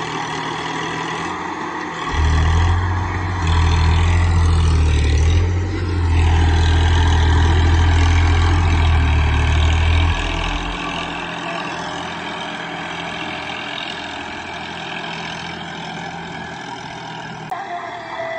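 A Massey Ferguson tractor's diesel engine labouring under load as it pulls a three-bottom mouldboard plough through the soil. It grows louder with a heavy low rumble about two seconds in, holds for some eight seconds as the tractor passes close, then fades as it works away.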